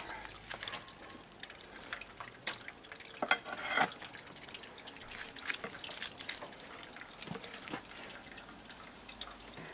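Grape juice trickling and dripping from the spout of a wooden basket wine press into a metal pot, with irregular clicks and knocks as the press's lever is worked. The loudest knocks come about three to four seconds in.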